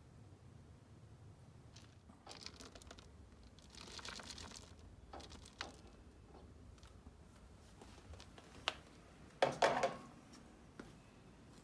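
Large paper cat-litter pellets rustling and crunching as a plastic litter scoop digs through them in a plastic litter tray, in several short bursts. The loudest rustle comes near the end, with a couple of sharp clicks.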